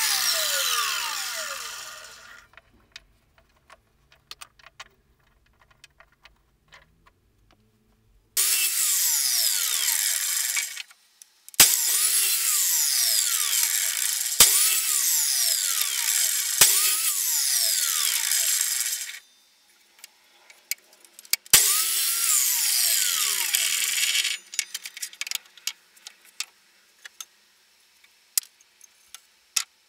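Scheppach mitre saw cutting pallet-wood blocks in several bursts of a few seconds each. Each burst ends as the motor winds down in a falling whine, with sharp knocks at some of the cuts. Between the cuts come quiet stretches with light clicks and knocks of the wood being handled.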